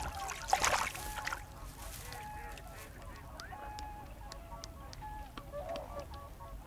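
A splash of water about a second in, then a flock of waterfowl calling, many short level-pitched calls overlapping, with a few faint clicks.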